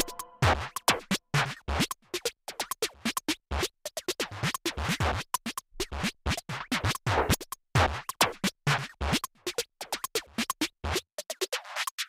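Electronic background music: a busy, uneven run of short, sharp clicks and scratch-like hits with occasional low thumps.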